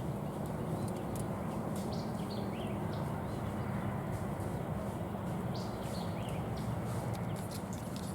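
Outdoor field ambience: a steady low rumble, with small birds giving short chirps every second or so.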